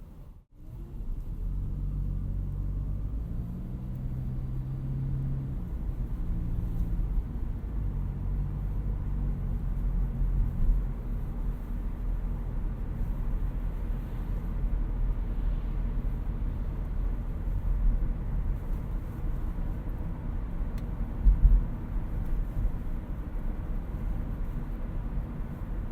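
2018 Toyota Auris Touring Sports 1.8 Hybrid driving on the road: a steady low rumble of road and tyre noise, with a pitched drivetrain hum over the first several seconds. A short, loud low thump comes about 21 seconds in.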